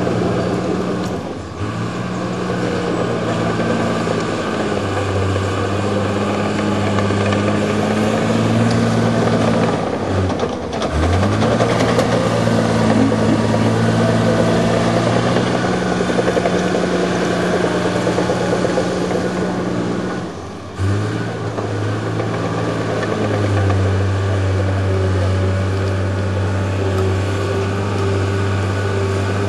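Crawler bulldozer's diesel engine running hard as it pushes soil. The engine note sags and picks back up three times.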